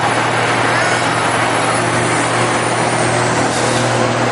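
Diesel engines of old big-rig trucks running at low speed as the trucks roll slowly past, a steady low drone.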